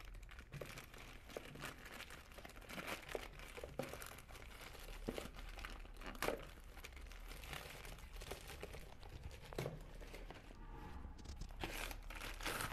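Plastic courier mailer bag crinkling and tearing irregularly as it is ripped open by hand.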